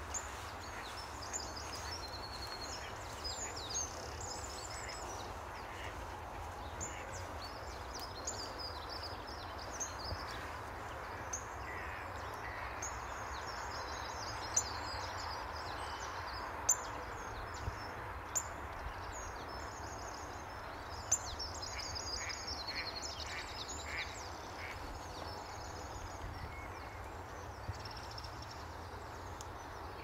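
Wild birds singing and calling: high chirps and trills from small songbirds come and go throughout, with a run of short, lower repeated calls about two-thirds of the way through, over a steady outdoor hiss. A few sharp clicks stand out near the middle.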